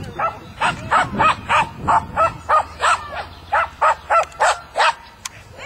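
Small dog barking in a rapid, even series of high yaps, about three a second.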